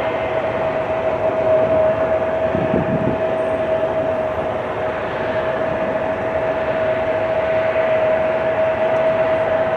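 Boeing 777-200's twin jet engines running as the airliner taxis: a steady whine over an even rushing noise.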